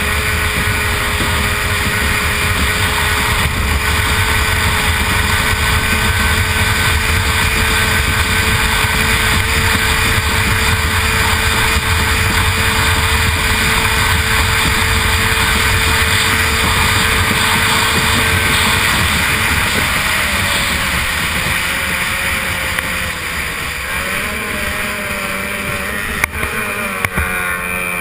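A-Stock hydroplane's two-stroke racing outboard running flat out, heard onboard with wind and water rush. The engine holds a steady high pitch, then its pitch wavers and shifts over the last several seconds as the boat goes into a turn, with a couple of sharp knocks near the end.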